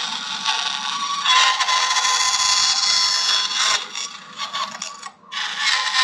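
Bandsaw cutting through a small workpiece backed by a sacrificial board, a dense rasping over the machine's steady hum. It dips briefly about five seconds in, then the cut goes on.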